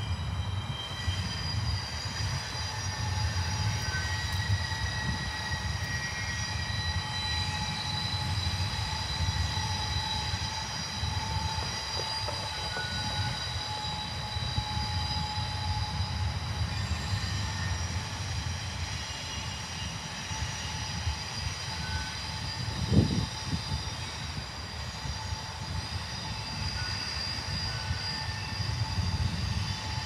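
Double-stack intermodal freight train rolling past: a steady low rumble from the cars with thin, high-pitched wheel squeals that come and go. A single thump stands out about three-quarters of the way through.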